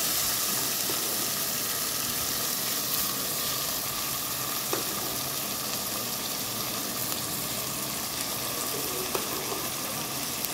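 Food sizzling steadily in hot oil in a pan, with a few light clicks of a utensil.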